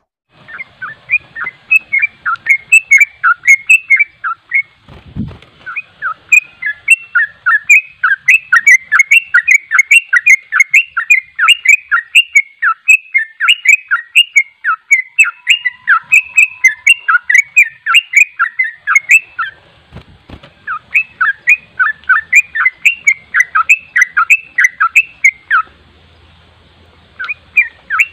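Yellow-vented bulbul (trucuk) singing a fast, near-continuous run of short whistled notes, several a second, the rapid non-stop 'ropel' style, with a few short pauses. Two dull low thumps sound at about five and twenty seconds in.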